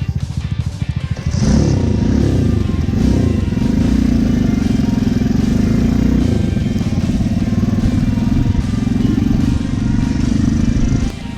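Honda Cub motorcycle's small single-cylinder four-stroke engine ticking over, then revving up and pulling away about a second in, running steadily under way and dropping off near the end.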